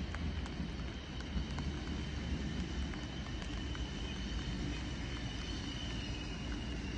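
Regional passenger train approaching slowly: a steady low rumble with a thin high whine held over it, and a few faint clicks.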